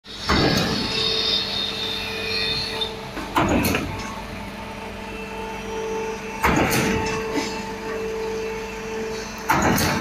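Trailer-mounted concrete pump working, fed by a mixer truck: a steady machine hum, with a loud surge about every three seconds, four in all, as the pump cycles its strokes.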